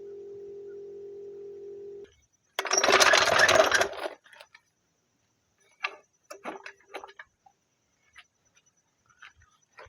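An air compressor's steady electric hum, made tone-like and strange by a cheap phone microphone, cuts off about two seconds in. About half a second later comes a loud rattling burst of about a second and a half, then scattered metallic clinks of tools.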